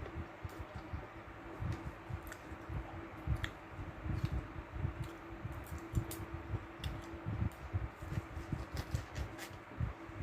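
Close-miked eating: a metal fork and knife clicking and scraping against a plate at irregular moments, with soft low thumps of chewing and handling, over a steady low hum.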